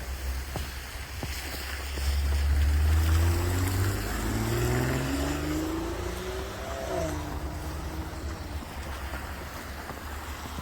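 A large vehicle's engine passing close by and pulling away: a loud low rumble, then a pitch that climbs in steps as it accelerates through the gears, drops about seven seconds in and settles.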